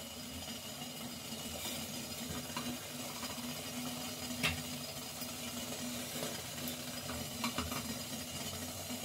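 Steel slotted spoon scraping and tapping against a steel mesh strainer while lifting steamed lentil dumplings off it, a few light clicks with one sharper one about four and a half seconds in, over a low steady hiss and hum.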